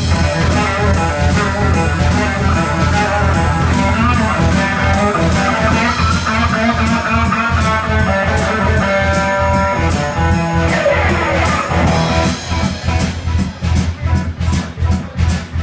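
Live blues-rock band playing an instrumental passage: electric guitar lines over electric bass and a drum kit keeping a steady beat. About two-thirds of the way through, the guitar slides down on a long note, and then the melody thins out to a pulsing groove of bass and drums.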